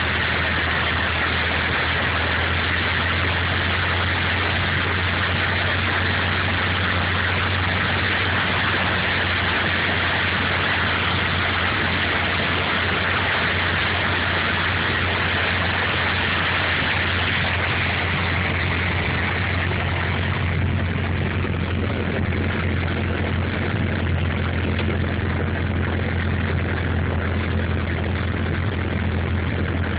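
Piper PA-28's piston engine and propeller running steadily, heard from inside the cabin in flight, with airflow hiss over it; the hiss eases a little about twenty seconds in.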